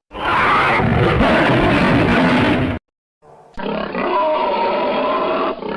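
Custom King Kong movie-monster roar sound effects: a roar of nearly three seconds, a brief silence, then a second, longer roar with a clearer pitch that runs on past the end.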